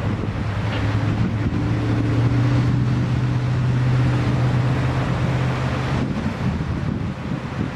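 A vehicle engine running steadily with a low hum, slightly louder in the middle, with wind noise on the microphone.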